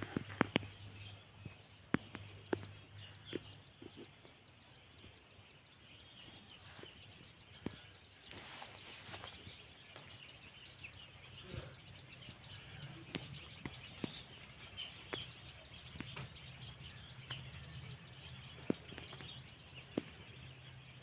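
Rural field ambience: birds chirping faintly over a low steady hum, with scattered sharp clicks, several of them in the first few seconds.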